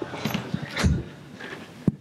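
Knocks and rustling as a laptop is set down and handled on a wooden lectern next to its microphone, with one low thump about a second in and a sharp click near the end.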